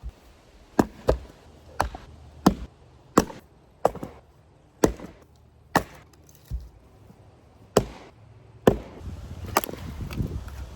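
Axe blows chopping into ash logs, about thirteen sharp strikes at roughly one a second, splitting the rounds into firewood.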